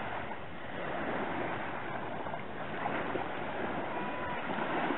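Small waves breaking and washing up a gritty sand beach: a steady hiss of surf.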